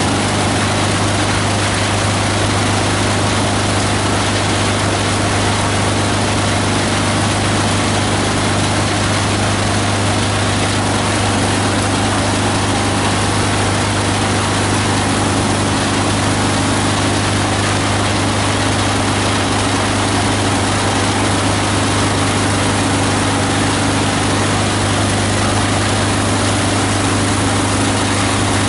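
18 HP diesel engine driving a multi-blade plastic and paper grinder, running steadily at constant speed with a strong low hum.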